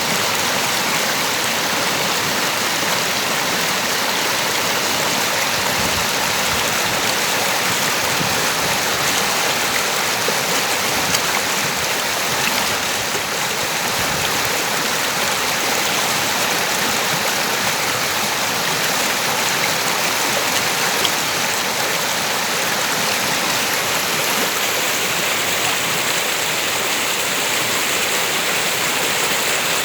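River water flowing and rushing over rocks: a steady, even rush without pause.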